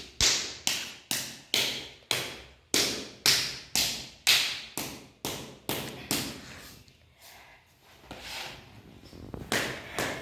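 Open hand slapping a person's body in a steady rhythm, about three sharp slaps a second. The slaps grow softer and sparser for a few seconds past the middle, then pick up again near the end.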